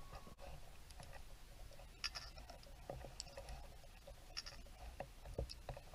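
Faint, scattered clicks and scratchy ticks heard underwater over a low rumble, with a held note of background music cutting off just at the start.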